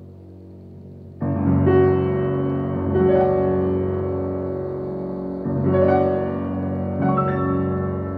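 Old, out-of-tune upright piano playing a slow solo piece: a soft low chord dies away, then loud, full chords are struck about a second in and three more times after, each left ringing.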